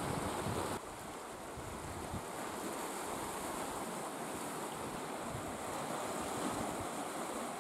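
Small sea waves washing over rocks along the shore, a steady hiss of surf. Wind rumbles on the microphone for about the first second, then the sound drops slightly and stays even.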